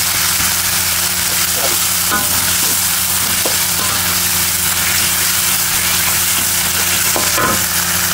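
Onions, chillies and tomato sautéing in hot oil in a wok: a steady frying sizzle, with a spatula stirring and scraping round the pan now and then and a steady low hum underneath.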